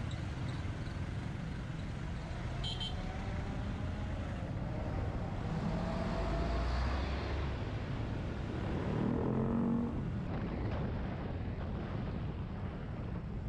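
Yamaha XT250 Serow's single-cylinder engine running in traffic, heard from the bike over road and wind noise, with the revs rising twice as it speeds up. A short high beep sounds about three seconds in.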